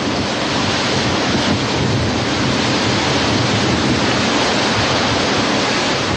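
Steady rushing noise of wind and sea surf, without a break.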